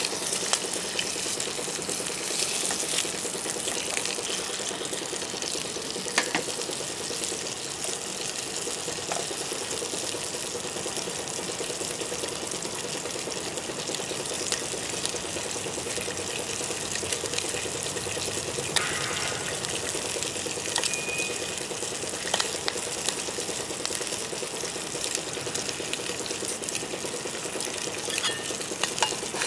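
Food sizzling steadily in a frying pan on top of a Winnerwell Nomad View wood-burning tent stove, with a few sharp pops and crackles scattered through the hiss.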